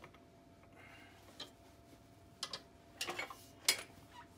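A few small clicks and knocks of tools being handled at a vise, with a sharper tap near the end: a mallet striking a strap wrench handle to shock an overtightened shock reservoir loose.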